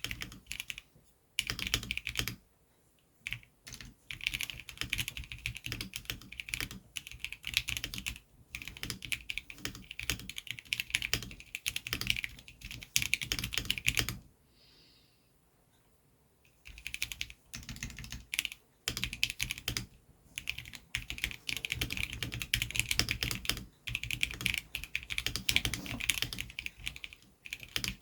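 Typing on an Epomaker EP84 mechanical keyboard with Gateron Yellow linear switches and double-shot PBT keycaps: fast runs of key clacks, broken by a pause of about two seconds near the middle.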